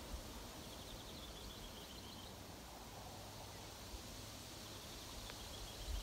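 Faint, steady rustle of wind through new leaves. A bird gives a rapid, high trill twice, near the start and again near the end.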